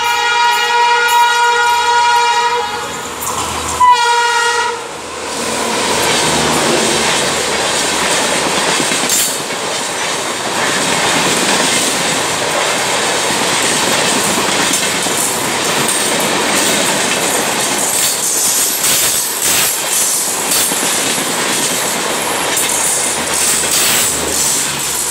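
Humsafar Express hauled by a WAP-5 electric locomotive running through at high speed. A long horn blast sounds, then a second short blast about four seconds in, and after that the passing coaches make a loud steady rush with clickety-clack over the rail joints.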